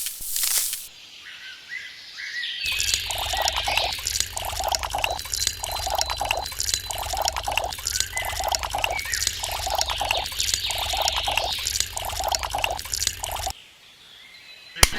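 A steady low mechanical hum with a pulsing tone repeating about every 0.7 s, birds chirping over it. It starts about three seconds in and cuts off suddenly near the end, followed by a sharp click.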